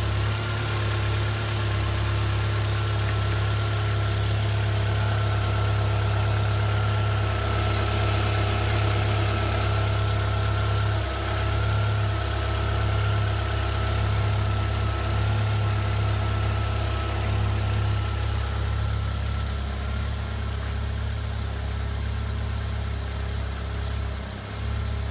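An engine running steadily at idle: a constant low hum with a faint steady high whine above it.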